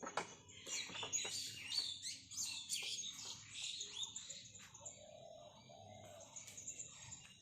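Small birds chirping and twittering, thickest in the first half, with a fainter, lower call in the middle.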